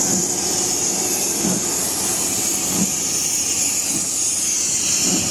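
Steam locomotive hissing steam steadily, with a soft low pulse about every second and a quarter.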